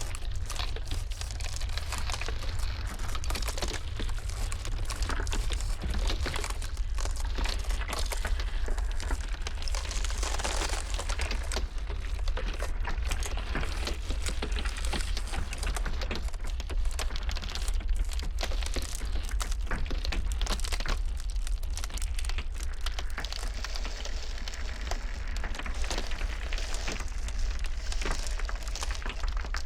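Ice cracking and crackling continuously, a dense stream of small pops and snaps over a steady low rumble.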